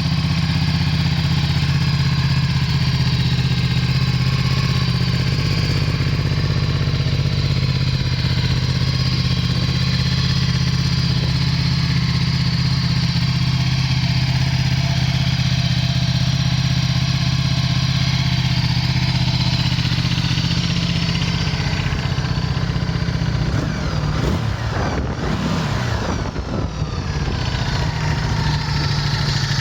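Ducati Multistrada 1260 S's V-twin engine idling steadily, then revved up and back down briefly a few seconds before the end before settling back to idle.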